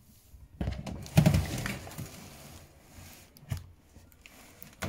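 Handling noise from a plastic hooded cat litter box: knocks and rustling of the lid and a taped-on piece of cardboard, loudest about a second in, followed by a few light clicks.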